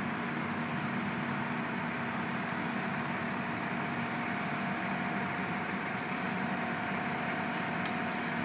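Engine of paving machinery idling steadily, an even, unchanging hum.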